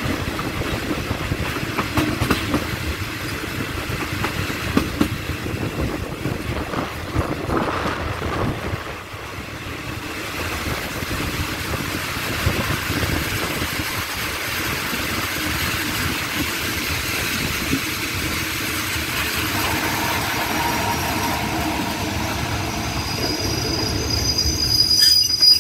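Passenger train running on jointed rails, heard from an open carriage door: a string of wheel clacks over rail joints in the first third, then steady running noise. In the last few seconds high-pitched brake squeal builds as the train slows alongside the station platform.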